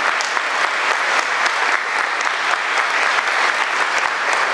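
Audience applauding steadily, the dense clapping of a roomful of people at the close of a speech.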